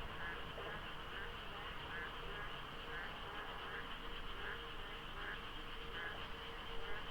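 A dense chorus of frogs calling in many overlapping voices, a continuous high trilling din with single calls standing out about once or twice a second, over a low steady rumble.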